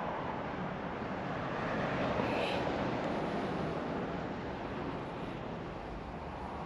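Distant background rumble that swells about two seconds in and slowly fades again.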